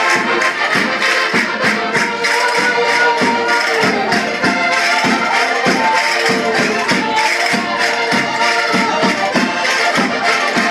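Live Portuguese folk dance music played on several accordions, with a quick, steady percussive beat under the melody.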